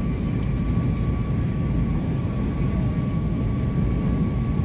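Jet airliner cabin noise: a steady low rumble of engines and airflow with a constant thin whine on top.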